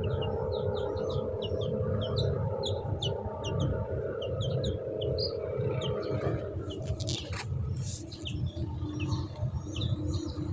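Baby chicks peeping: many short, high, quick cheeps over a low steady hum, with a few brief rustling noises about two-thirds of the way through.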